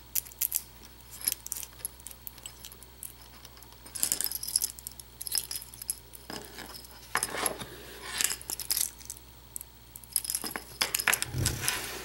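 Irregular small metallic clicks and clinks from handling a euro-profile lock cylinder as a shim is worked in around its plug, with a dull bump near the end.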